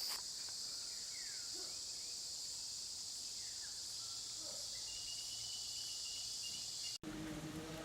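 A steady, high-pitched chorus of insects, with a few faint falling chirps, cuts off abruptly about seven seconds in and gives way to a different, lower background.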